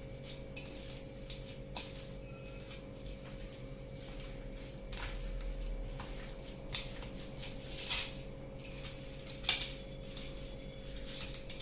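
Hands mashing and kneading boiled potato with cooked sama rice on a steel plate: soft squishing with a few light clicks of fingers against the plate, the loudest near the end, over a steady faint hum.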